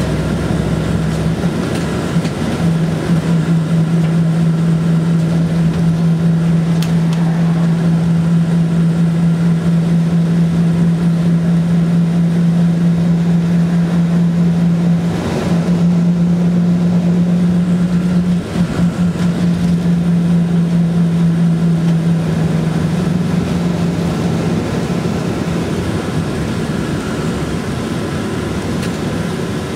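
Diesel engine drone and road noise heard inside a city route bus cruising along a road. The steady engine hum rises a little about halfway through, falls back a few seconds later and weakens near the end.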